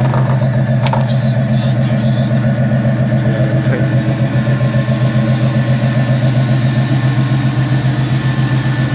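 Chevrolet K5 Blazer's V8 engine idling steadily, its exhaust note pulsing evenly.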